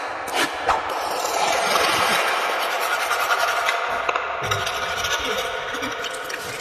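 Continuous rasping and scraping of a hand tool worked against a pipe, with scattered clicks.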